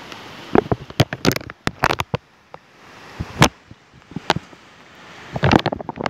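Irregular sharp pops and knocks from walking with a handheld phone, over a faint steady hiss, with a dense cluster about a second in and another near the end.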